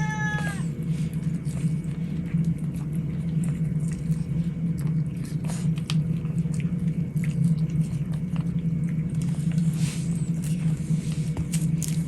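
A cat gives one short meow right at the start, over a steady low hum, with a few faint clicks later on.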